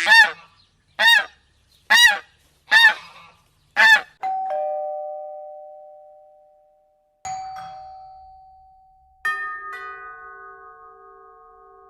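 Goose honking five times, about a second apart. Then a two-note doorbell chime rings twice, a few seconds apart, followed near the end by a richer bell chime of several tones that rings on.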